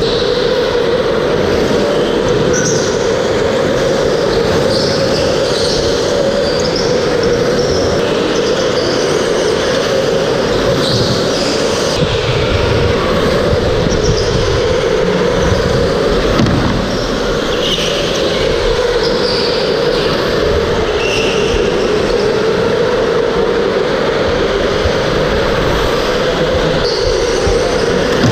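Electric go-karts running flat out on an indoor track: a steady motor whine that wavers up and down with speed, with repeated short tyre squeals through the corners.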